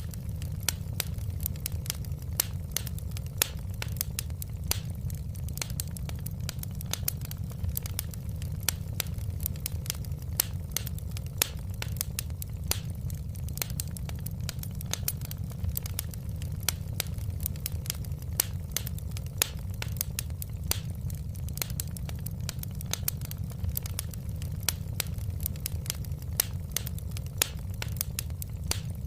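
Wood fire crackling, with irregular sharp snaps and pops over a steady low rumble.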